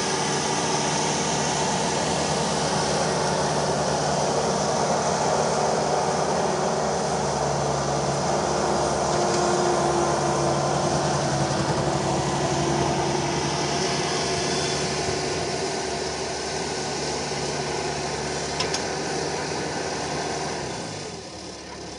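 Bobcat skid-steer loader's engine running steadily at working speed while it clears and loads tree stumps. It swells a little towards the middle and eases off near the end.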